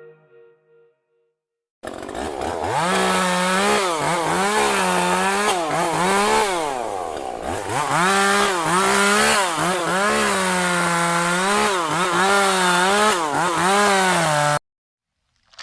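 Chainsaw running at high revs, its pitch repeatedly dipping and climbing back as it cuts into wood, starting about two seconds in and cutting off abruptly near the end.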